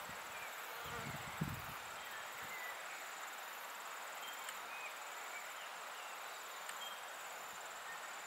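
Insects trilling in repeated high-pitched pulsed trains as steady background, with a few faint short chirps scattered through and a brief low thump about a second and a half in.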